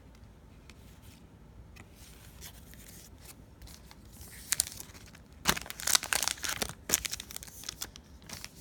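A trading-card pack's plastic wrapper being torn open and crinkled: quiet handling at first, then several loud crackling tears starting about halfway through.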